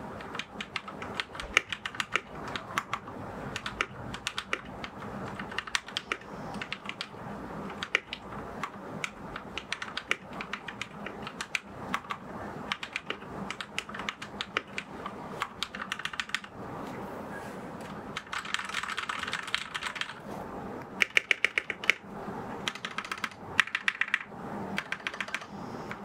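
Typing on a Royal Kludge RK71 compact mechanical keyboard: a steady stream of irregular keystroke clacks, with louder, quicker flurries of keys in the second half.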